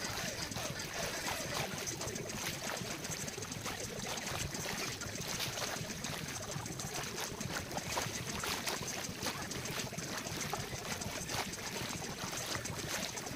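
Small waves lapping and washing over the sand at the water's edge: a steady sloshing with many small crackles.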